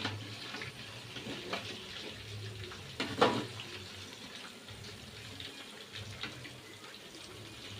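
Chicken pieces deep-frying in hot oil: a steady crackling sizzle, with a sharp knock at the very start and a louder knock a little after three seconds, from a utensil striking the pan as the pieces are turned.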